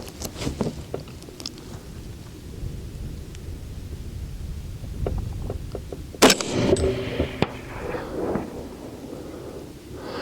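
A single rifle shot from an AR-15 with a 24-inch barrel firing .223 rounds, a sharp crack about six seconds in followed by a short ringing tail. Under it is a low, steady rumble.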